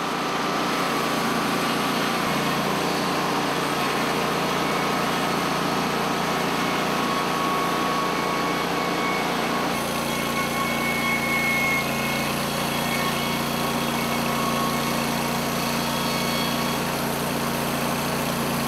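Norwood LumberMate Pro MX34 portable band sawmill running steadily under engine power, with a slight shift in tone about ten seconds in.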